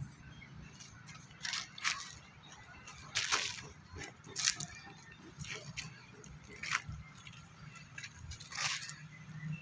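Scattered short crackles and rustles, about half a dozen at irregular intervals, from movement and handling close to the phone's microphone.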